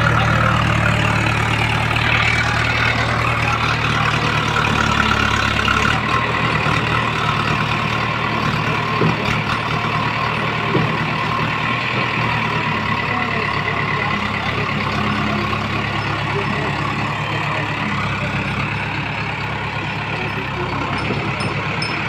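JCB 3DX backhoe loader's diesel engine running steadily under load while the front loader bucket works a pile of mud. The engine note shifts twice, about a quarter of the way in and again about halfway.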